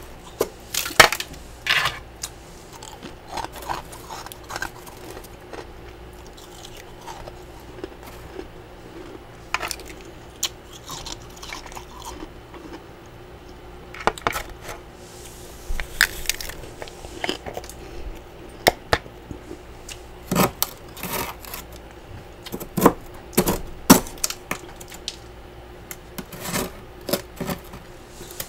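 Metal spatula scraping and chipping built-up frost from the inside of a freezer: irregular scrapes and sharp clicks, with a few quieter stretches in between.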